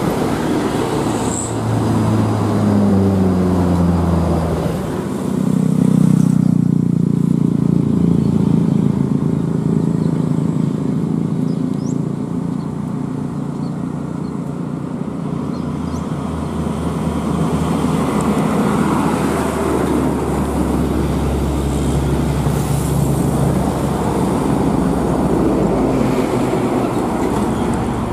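Vehicle engine and road noise while driving, the engine note rising in pitch during the first few seconds as it accelerates, then running steadily.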